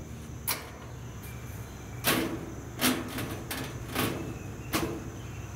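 Stainless steel cabinet door of a gas grill being set on its hinge pins and swung, clacking against the sheet-metal cabinet: about seven sharp metal clicks and knocks, the loudest about two and three seconds in.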